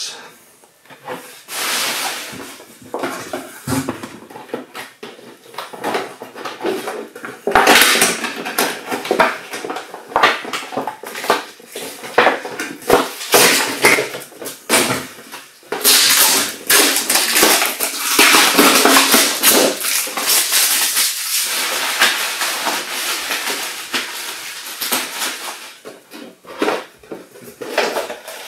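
Clear plastic display case and the crinkly plastic wrap inside it being opened and handled: steady crinkling and rustling with sharp clicks and clatter, thickest in the second half.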